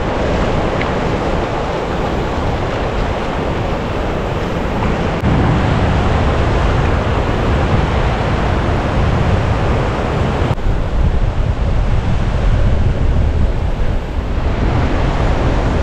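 Waves breaking on a beach, with wind rumbling on the microphone; the sound steps abruptly about five seconds in and again about ten seconds in.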